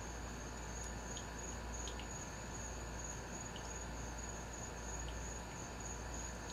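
Insects, crickets by the sound, trilling steadily at a high pitch in an even pulse, with a few faint clicks from wet handling.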